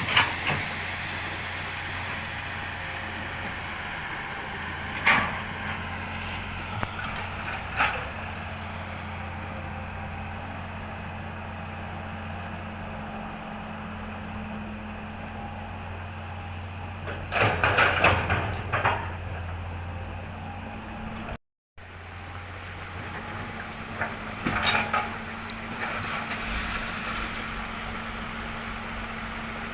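Komatsu excavator's diesel engine running steadily, with metallic clanks and knocks from the bucket and truck bed every few seconds and a longer clatter a little past halfway, as soil is loaded into a dump truck. The sound cuts out for a moment about two-thirds through.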